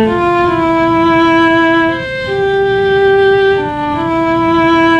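Sampled solo strings patch from the Sound Arsenal virtual instrument playing a slow melody, one long held note at a time, stepping down and back up in pitch.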